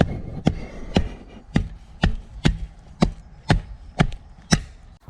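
Digging tool chopping into earth, ten strikes at about two a second, then it stops.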